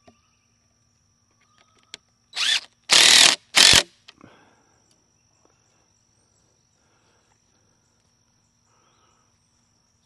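Cordless drill-driver driving a screw through a wooden slat into a trellis upright: three short bursts of the motor about two and a half seconds in, the middle one the longest.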